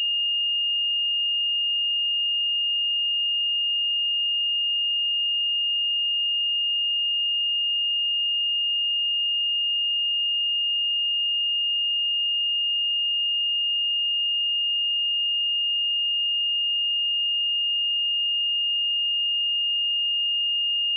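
A pure 2833 Hz sine-wave test tone, one steady high-pitched note held without change.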